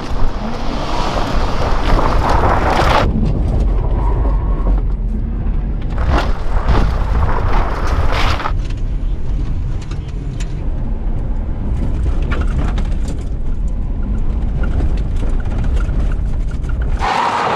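Ford Crown Victoria V8 engine running hard under racing load on a loose dirt and gravel course, mixed with tyre and gravel noise. The sound changes abruptly a few times.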